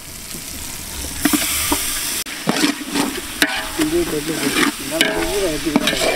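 Mutton frying in onion-tomato masala in a large metal pot: a steady sizzle, building over the first second, as a spoon stirs it, with sharp knocks and short squeaking scrapes of the spoon against the pot.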